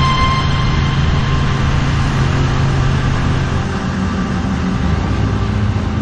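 Motorcycle engine running steadily at cruising speed, with a rush of wind and road noise.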